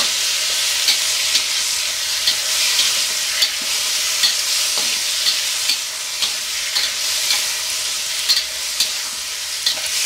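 Marinated chicken pieces and ginger sizzling in hot oil in a pan while a spatula stirs and turns them: a steady hiss broken by frequent short pops and clicks.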